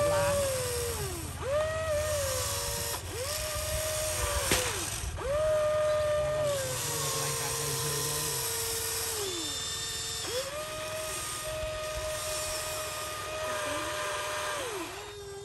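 Huina RC excavator's electric gear motors whining as the boom, arm and bucket move, in about five runs of one to four seconds each. Each run rises in pitch as it starts and falls away as it stops.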